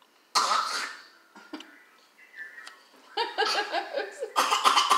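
A single cough-like burst about half a second in, then short bursts of voiced laughter from about three seconds on.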